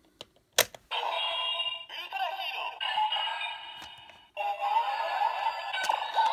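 Ultraman R/B Rube Gyro toy playing electronic sound effects and music through its small speaker, with a thin, tinny sound, after a sharp plastic click about half a second in. The sound breaks off briefly about four seconds in and starts again. This is the generic Ultra Hero sound that a crystal without its own sounds sets off.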